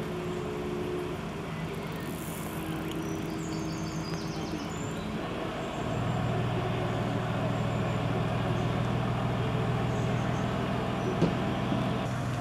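An engine running steadily, its hum getting louder about six seconds in.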